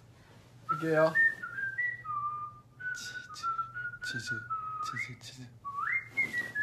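A person whistling a short tune, starting about a second in, with the pitch stepping up and down from note to note.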